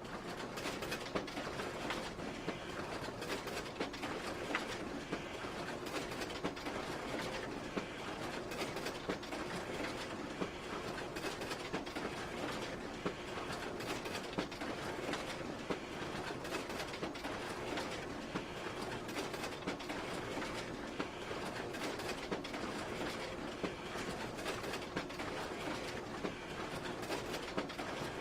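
Photocopier running continuously: a steady mechanical hum with frequent short clicks and clatter.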